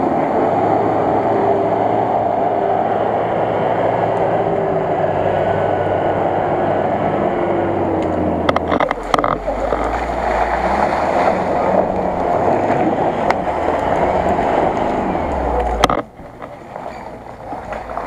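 Engines of 4x4 off-road vehicles driving through mud, loud and steady with the revs rising and falling. The sound drops away suddenly near the end.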